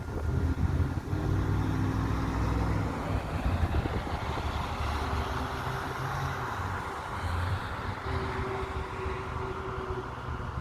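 Engine noise: a steady low rumble with a rushing hiss that swells in the middle and eases near the end.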